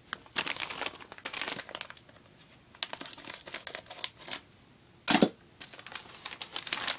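Clear plastic poly bag crinkling in bursts as it is handled and opened, with one short, louder burst about five seconds in.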